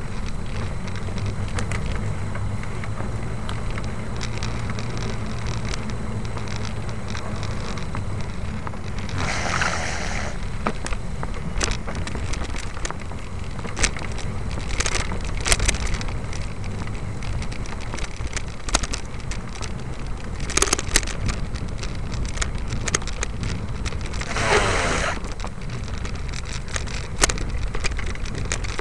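Steady low rumble of a vehicle moving along a street, with scattered sharp clicks and two brief noisy swells, about ten and twenty-five seconds in.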